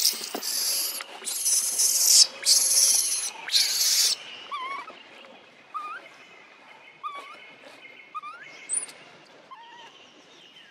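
Baby long-tailed macaque crying: four loud, harsh screeches in the first four seconds, then short rising whimpers about once a second.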